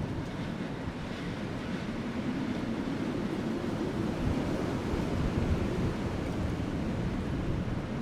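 Soft wind with a low, rolling rumble of distant thunder that slowly swells through the middle and eases off near the end.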